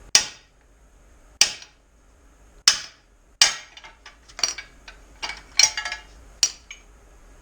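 Hammer striking the top of an extension bar with an upside-down 15/16 socket on it, driving a pressed-in part out of a suspension control arm: four hard, ringing metal-on-metal blows about a second apart, then a quicker run of lighter taps. The part is stubborn and only partly comes out.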